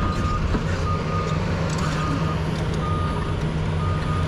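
Heavy earthmoving machine's diesel engine running steadily under a backup alarm beeping at one pitch, about one half-second beep every second.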